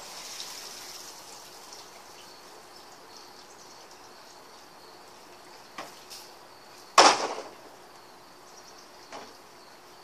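Water splashing in an above-ground pool as a person moves about in it, with one loud sudden splash about seven seconds in and a few smaller ones around it.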